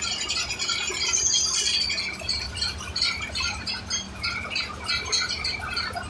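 Concrete mixer lift machine running as its hoist bucket is winched up the mast: a low engine rumble under quick, rhythmic high squeaks and rattles, about three a second.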